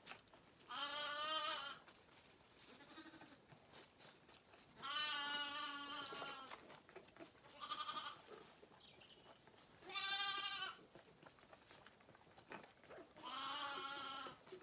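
Zwartbles lambs bleating: four long, wavering bleats a few seconds apart, with a short one about eight seconds in.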